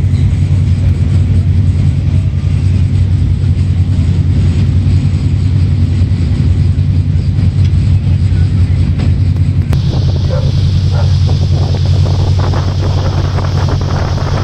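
A ship's engines running with a steady, loud low drone, with wind on the microphone. About ten seconds in, a louder hiss of wind and rushing water joins as the vessel comes up to the quay.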